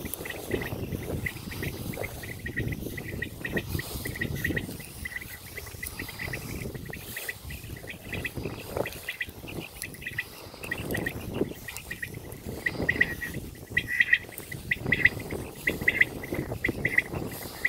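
Open-field outdoor sound: a steady low rumble of wind and movement, with short high chirps repeating throughout that grow thicker and louder over the last few seconds.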